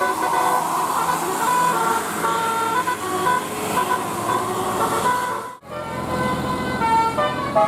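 Telolet multi-tone musical horn playing a tune of quick stepped notes. It breaks off sharply for a moment about five and a half seconds in, then the horn notes start again.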